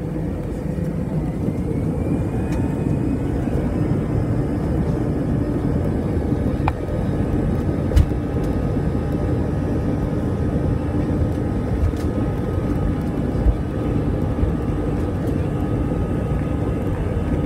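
Airbus A320's jet engines running at taxi power, heard inside the cabin over the wing: a steady hum and rumble, with a faint rising whine in the first few seconds. A few sharp knocks come about eight, twelve and thirteen seconds in.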